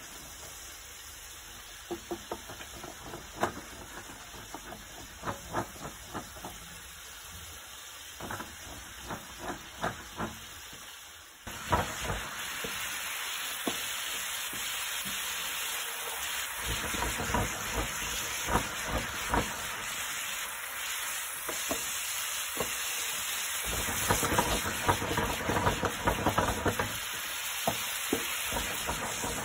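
Picada sauce sizzling in a pan while a wooden spoon stirs it, with repeated scrapes and taps of the spoon against the pan: the vinegar, white wine and cognac just added are reducing, cooking off their alcohol. About a third of the way in the sizzle gets suddenly louder.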